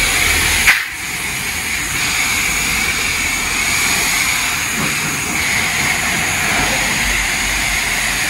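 High-pressure spray wand of a self-serve car wash blasting water onto a pickup truck's body: a loud, steady hiss, with a brief click and break a little under a second in.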